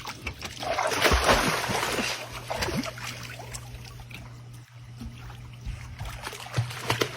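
Water splashing, loudest about a second in, then fading to a fainter trickle, over a low steady hum.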